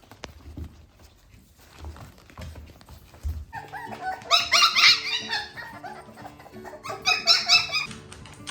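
Shiba Inu puppies yipping and squealing in play, in two high-pitched bursts a few seconds apart, over background music that comes in about three and a half seconds in. Soft knocks and patters before the music.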